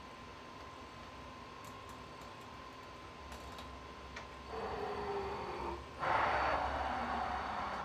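Control panel buttons on a CNC vertical machining center clicking a few times, then its umbrella tool changer carousel indexing. A mechanical whine falls in pitch for about a second, followed by a louder rushing noise lasting nearly two seconds.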